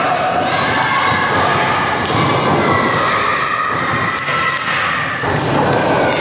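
A run of thumps and slaps from wrestlers trading blows and grappling in a wrestling ring, with crowd voices in a reverberant gymnasium behind them.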